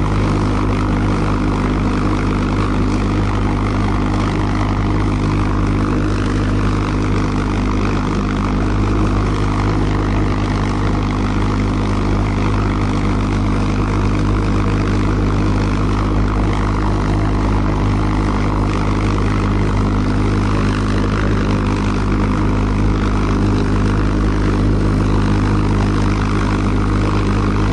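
Reproduction Argus As 014 pulse jet engine of a V-1 flying bomb running steadily on a test stand. It is loud and even, one low pitch with many overtones and no change in speed.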